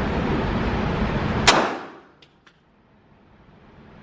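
A steady rushing noise, then a single sharp pistol shot about a second and a half in, ringing off in the indoor range. Two light ticks follow.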